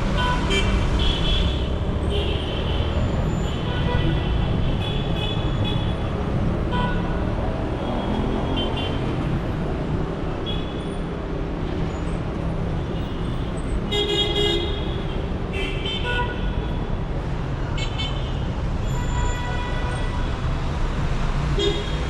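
Busy city street traffic: engines running under a constant rumble, with car and motorbike horns tooting again and again in short blasts. A cluster of several overlapping honks comes about fourteen seconds in.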